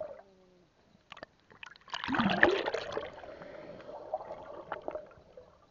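Water sounds picked up by an underwater camera: a few sharp clicks, then a loud rush of bubbling, gurgling water about two seconds in that eases off into a softer steady swirl.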